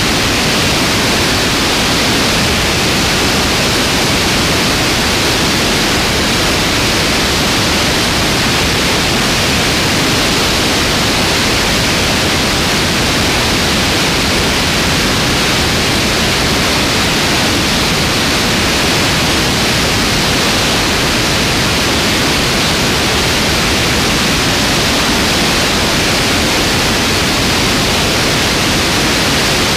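Steady, loud rush of airflow over a wing-mounted camera on a small plane in flight. It is an even noise with no clear engine note.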